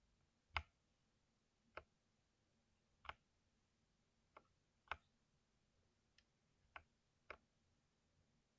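Single keystrokes on a lubed mechanical keyboard: about eight separate key presses, unevenly spaced, with quiet between them.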